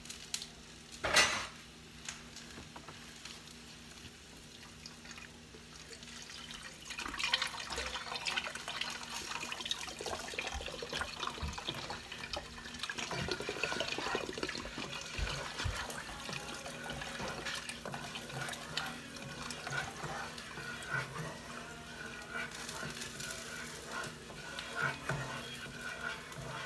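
Chicken broth pouring from a carton into a pot of warm roux, a steady splashing pour that starts about seven seconds in and runs on. A single sharp knock about a second in.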